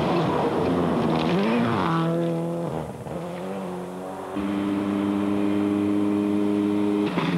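Subaru Impreza WRC rally car with a turbocharged flat-four engine passing at speed on a gravel stage, its engine note climbing as it accelerates away. Then a different car engine is heard, held at steady revs for about three seconds.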